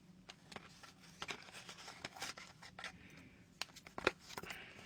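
Faint scattered clicks and rustles of a small earplug package being handled and opened by hand, with a sharper click about four seconds in.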